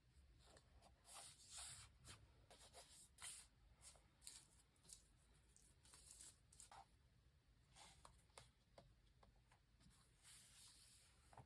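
Faint, scattered rustles and light ticks of paper and stickers being handled while decorating a diary.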